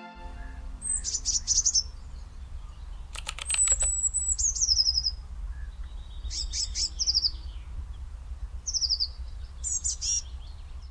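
Small birds chirping in short, high phrases that fall in pitch, about five of them a second or two apart, over a steady low rumble.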